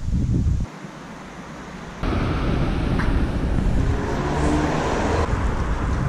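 Outdoor city traffic noise, a steady rumble of passing cars. It drops suddenly under a second in and comes back just as suddenly about two seconds in.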